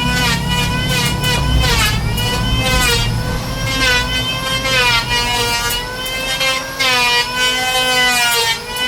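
Electric woodworking power tool running with a high motor whine that dips in pitch and recovers again and again as it bites into the wood, with a hiss of cutting between the dips.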